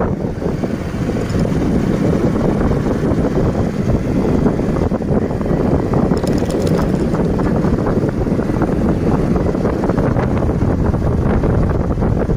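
Wind buffeting the microphone while riding, over steady vehicle and road noise. A brief high rattle comes in about six seconds in.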